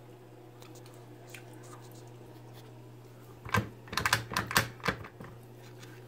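A quick run of sharp clicks and knocks lasting about a second and a half, from a Razor A5 Air kick scooter's folding hinge and stem being handled, over a low steady hum.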